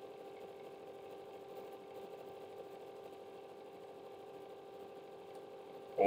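Vintage Russian fan heater running steadily on its second, hottest stage: its fan motor gives a faint, even hum with a few steady tones.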